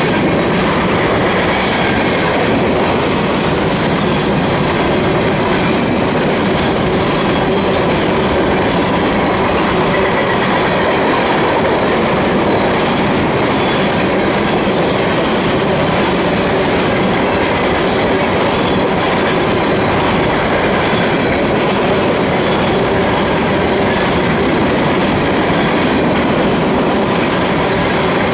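Steel-wheeled covered hopper cars of a freight train rolling past at close range: a loud, steady rolling noise of wheels on rail, with faint clicks scattered through it.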